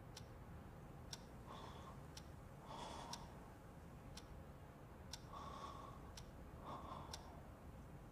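Faint, slow breathing of a person asleep: soft breaths about a second long, a few seconds apart, with light ticks about once a second.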